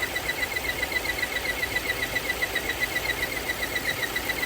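2017 Volvo XC60 engine idling with a rapid high-pitched chirping noise, about eight a second, over a low hum. It is the noise that comes with the lean code and high idle, which he later traces to a vacuum leak at the PCV valve and oil trap.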